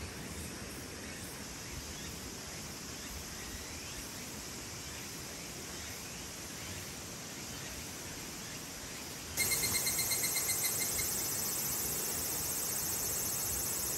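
Summer forest ambience: a steady high hiss of insects. About nine seconds in it turns suddenly louder, with a dense high buzz and a quick run of pulsing chirps lasting about a second and a half.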